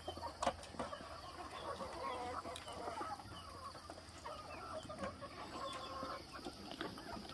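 A large flock of chickens clucking, many overlapping calls, with a sharp click about half a second in.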